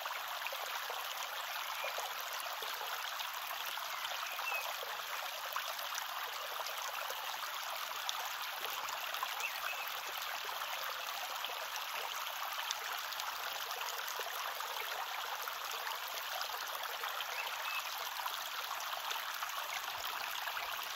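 Shallow river running steadily over gravel close to the microphone, with a few small splashes as someone wades in and sits down in the water.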